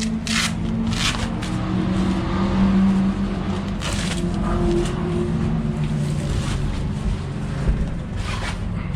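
Race car engines running on the circuit, with steady tones that drift slowly in pitch. A few short bursts of noise come through about a second in, near the middle and near the end.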